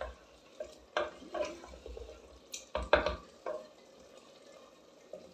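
Wooden spoon stirring and scraping thick spinach-and-chicken curry in a clay pot, a few irregular scrapes and knocks in the first three and a half seconds, then quieter. The curry is being fried (bhuna) once its water has dried off.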